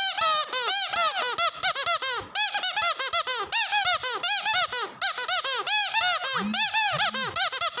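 Squeaky dog toy squeezed over and over in quick succession, about five squeaks a second, each rising and falling in pitch. There are short breaks about two and five seconds in.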